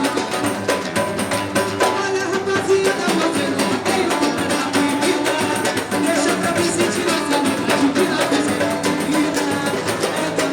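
Samba music: a band playing a busy, fast percussion rhythm with singing over it.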